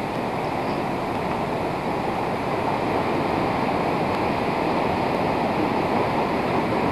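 Steady wash of ocean surf breaking on the beach, growing a little louder about two seconds in.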